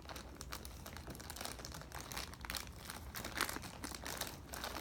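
Toy packaging crinkling and crackling as it is worked open by hand, with a louder crackle about three and a half seconds in.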